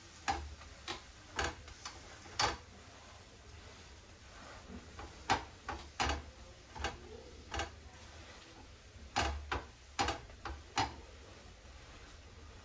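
Metal spatula clicking and scraping against a tawa as a lacha paratha is pressed and shifted on it: about a dozen short, irregular taps with short pauses between.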